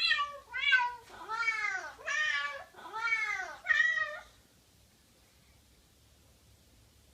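A run of cat meows, about five in the first four seconds, the first short and the later ones longer with a rise and fall in pitch.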